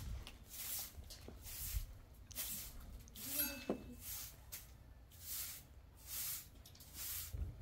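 A rhythmic swishing hiss, repeating about once a second, with a brief faint sound near the middle.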